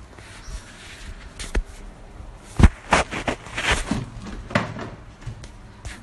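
Handling noise from a phone being moved about: a string of knocks and rustling against the microphone, with one sharp knock a little before the middle.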